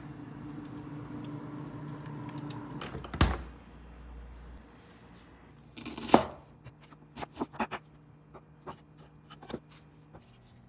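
A refrigerator freezer drawer hums steadily while it stands open, then shuts with a heavy thud about three seconds in. After that a chef's knife chops onion on a wooden cutting board: one hard chop, then a run of lighter knocks.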